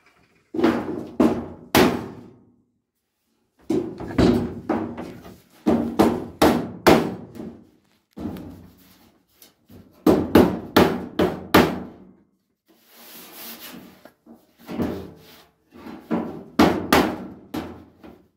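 Hammer blows on a wooden block held against the top edge of a Ford Escort Mk1's steel front wing, struck in quick clusters of several knocks with short pauses between, knocking the panel edge over to close up the panel gap. A brief scraping hiss comes about two thirds of the way through.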